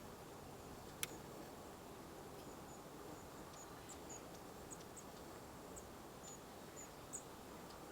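Faint, very high, short chirps from a small bird in the background, repeated irregularly, over steady low outdoor noise. There is a single sharp click about a second in.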